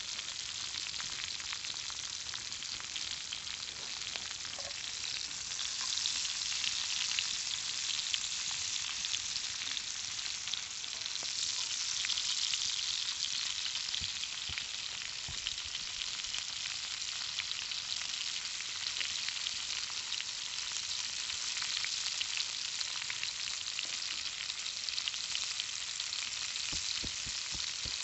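Conecuh smoked sausages sizzling steadily in a cast iron skillet over a campfire, with many small spattering pops.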